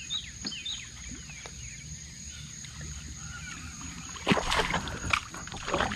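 Water splashing and sloshing around a small fishing boat, loudest from about four seconds in, with faint chirping in the first couple of seconds.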